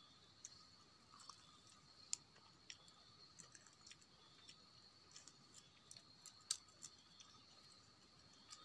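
Faint chewing: scattered soft clicks and squishes of someone eating roasted mouse meat, over a faint steady high drone of forest insects.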